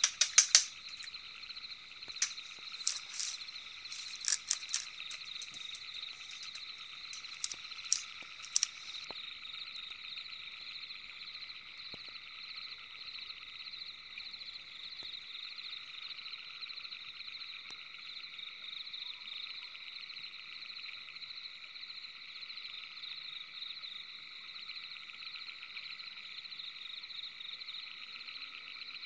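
Steady night-time chorus of calling frogs, a fast, even trill. Several sharp clicks sound over it during about the first nine seconds, the loudest right at the start, then stop.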